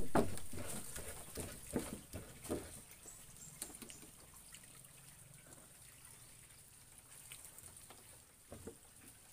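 Stone pestle crushing tomatoes and chilies into sambal in a stone mortar: a few separate strokes, mostly in the first four seconds, then only faint sounds.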